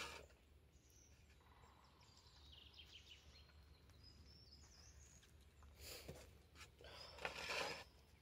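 Near silence with faint high bird chirps in the middle, then two brief soft rustling noises near the end.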